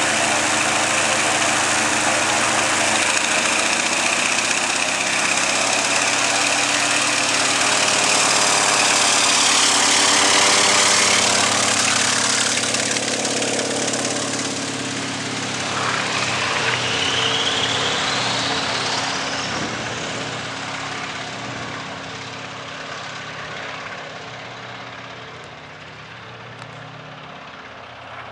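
Antonov An-2's nine-cylinder radial engine and propeller running at high power for take-off. It is loudest about ten seconds in, then fades steadily as the biplane moves off and climbs away.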